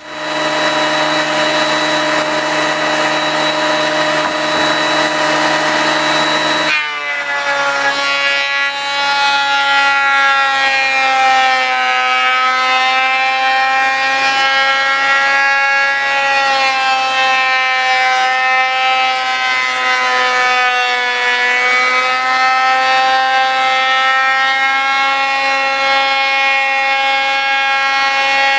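Electric benchtop thickness planer running with a loud whine over a rush of noise, planing scarfed wooden boat longitudinals down from 5/4 to 3/4 thickness. About seven seconds in the sound changes abruptly, and after that the whine sits slightly lower and wavers up and down.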